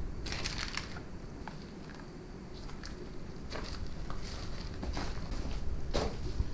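Footsteps scuffing and crunching across a littered floor, about a dozen irregular steps and crunches.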